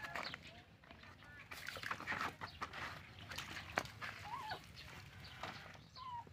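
Chickens clucking, with rustling and scattered clicks throughout and one sharp click near the middle.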